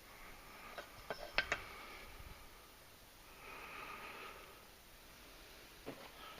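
Faint, sharp clicks of small metal parts, a few in quick succession about a second in, as a tiny pin is fumbled by hand into an AR-15 charging handle's latch. A soft breath follows midway.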